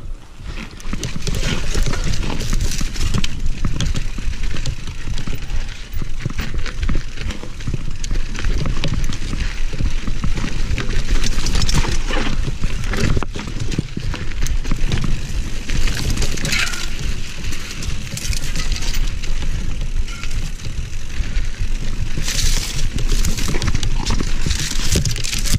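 Mountain bike rolling down a rocky dirt trail: tyres crunching over loose stones and the bike rattling with many small knocks. It sets off from a standstill about a second in.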